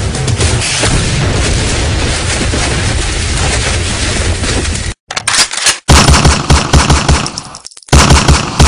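Recorded battle sound effect on the performance soundtrack: a dense, continuous noise for about five seconds, a sudden brief break, then loud bursts of rapid machine-gun fire.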